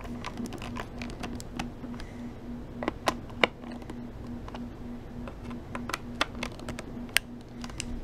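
Screwdriver working the screws of a Fluke 87 III multimeter's plastic back case: a run of small, irregular clicks and light scrapes as the screws are turned down snug, with a few sharper clicks.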